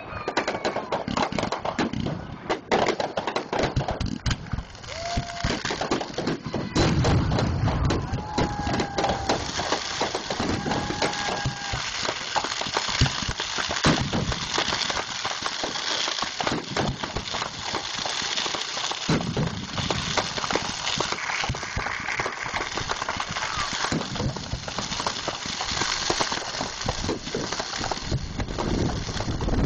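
Fireworks display: a dense run of shell bursts and crackling, with many bangs and crackles in quick succession throughout.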